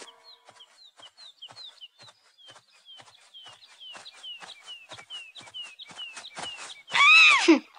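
Cartoon forest ambience: songbirds giving short, falling chirps over and over, with light, quick, regular footsteps. About seven seconds in, a loud whistle-like tone swoops up and then drops steeply.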